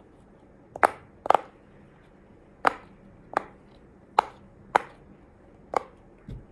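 Simple dimple fidget toy with its silicone bubbles pressed one at a time, giving about seven sharp pops spaced half a second to a second apart.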